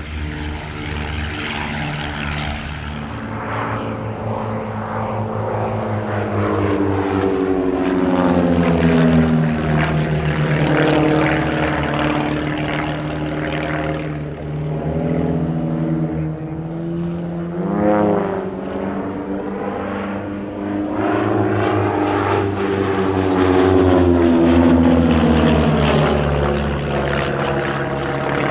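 A pair of Van's RV-7 and RV-8 light aircraft flying close-formation aerobatics, their piston engines and propellers droning together. The pitch falls and rises again and again as they climb, dive and pass.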